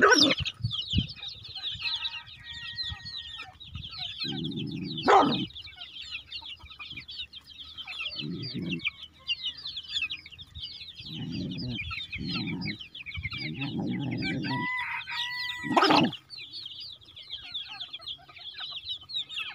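A flock of chickens: chicks peep constantly and hens cluck now and then, with one longer call about fifteen seconds in. A few sharp knocks stand out, the loudest near the start, about five seconds in and about sixteen seconds in.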